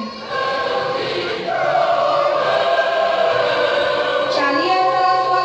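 Choral music: voices singing long held notes over a steady accompanying tone.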